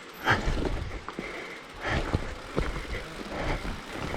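Mountain bike rolling down a rough trail: a steady noise of tyres on dirt, broken by rattles and thuds of the bike over bumps, the loudest coming about a third of a second in and again around two seconds in.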